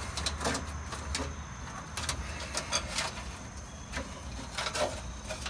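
Scattered light clicks and knocks of something being handled, some in quick clusters, over a low steady hum.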